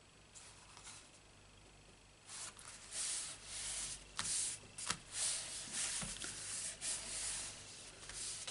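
Hands rubbing and smoothing a cardstock panel flat onto a card base: a run of dry paper swishes starting about two seconds in, with a couple of sharp taps.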